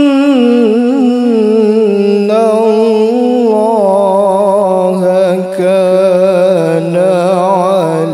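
Qur'an recitation: a single voice sustaining one long, ornamented melodic phrase, the pitch wavering and stepping gradually lower.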